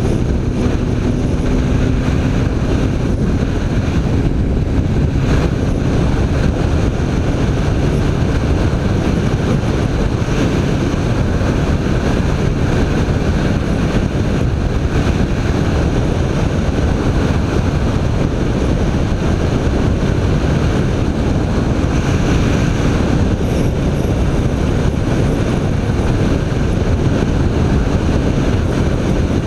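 BMW K1300 R motorcycle's inline four-cylinder engine running steadily while riding, under heavy wind rush on the microphone. The sound holds even throughout, with no gear changes or sharp revving.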